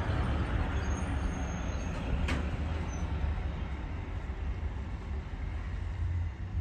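Outdoor ambience by the water: a steady low rumble with no distinct source, with a single sharp click about two seconds in.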